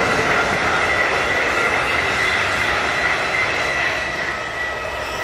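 Regional passenger railcar running past on the track, a steady rolling noise with a steady high-pitched whine over it. It slowly fades as the train moves away.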